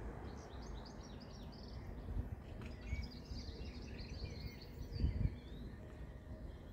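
Outdoor ambience: small birds chirping and twittering over a steady low rumble, with a short low thump about five seconds in.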